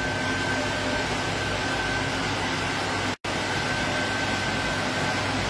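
Steady fan-like hum and hiss with a constant high whine. The sound drops out completely for an instant a little past halfway.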